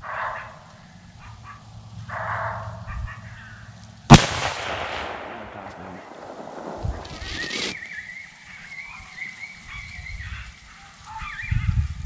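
A single gunshot about four seconds in, the loudest sound, with its echo rolling away for about three seconds. Short high wavering animal calls come before it, and a long wavering call follows it.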